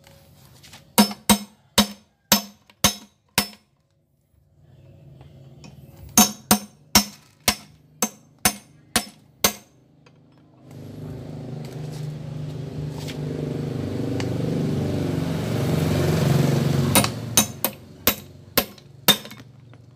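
Hammer blows on metal engine parts, about two strikes a second, in three runs. Between the second and third run a steady noise swells for several seconds.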